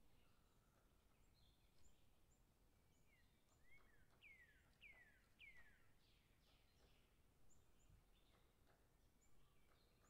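Faint birdsong from small birds: scattered chirps, with a run of three falling whistled notes about four to six seconds in.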